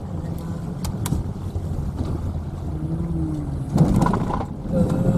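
Low rumble of a car towing a camping trailer rolling slowly, heard from inside the cabin. Two sharp clicks come about a second in, and the noise swells into a louder rush about four seconds in as the car nears the ferry's vehicle ramp.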